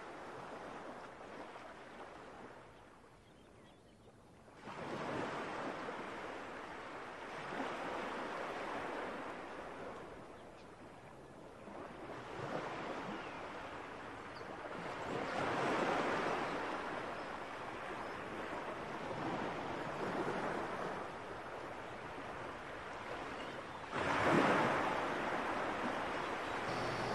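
Ocean surf: waves washing in and drawing back, the rushing noise swelling and fading every few seconds.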